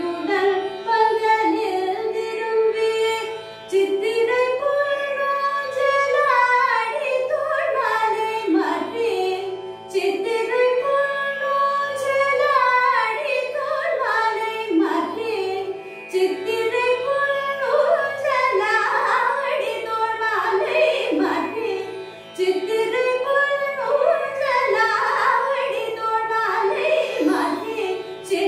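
A woman singing Carnatic music, her voice sweeping through ornamented glides in long phrases with short breaks between, over the steady drone of a tanpura that she plucks as she sings.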